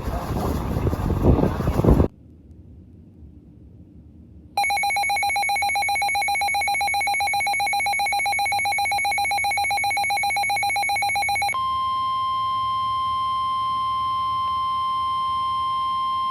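Emergency alert tones: after a couple of seconds of rough noise and a short pause, a harsh pulsing two-tone Emergency Alert System attention signal sounds for about seven seconds. It switches to a steady single-pitched NOAA Weather Radio warning alarm tone for about six seconds, heralding a severe thunderstorm warning.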